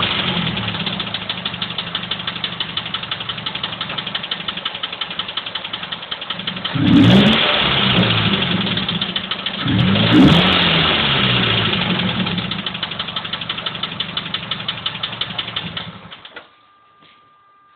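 Mazda 3 engine idling with a rapid, even clicking running through it. It is revved briefly twice, about seven and ten seconds in, then switched off near the end.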